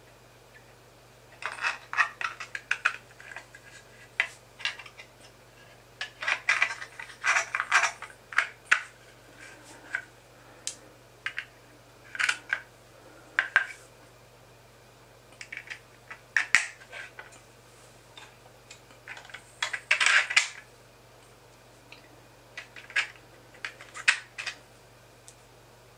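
Hard 3D-printed plastic parts clicking and clattering as they are handled and fitted together, with small pins pressed in to secure them. The clicks come in irregular bursts of a few quick taps at a time.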